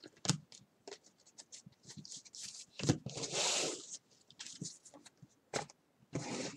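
Baseball trading cards being handled: cards flicked and slid against one another and stacks set down on a tabletop, making a run of light clicks and taps, with a thud and then a longer scraping swish about three seconds in.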